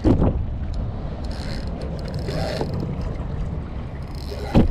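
Wind buffeting the microphone over water sounds around a small plastic fishing kayak, with a sudden loud sound at the start and another near the end.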